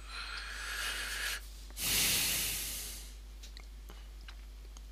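A person breathes in through the nose for about a second and a half, with a faint wavering whistle. After a short pause comes a louder, longer breath out that fades off, like a sigh. A few faint small ticks follow near the end.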